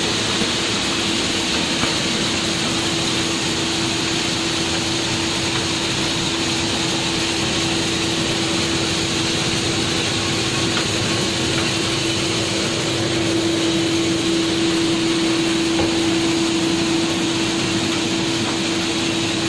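Belt-driven dal mill machine running steadily: a constant machine drone with a steady hum-like tone, which grows a little louder about two-thirds of the way through.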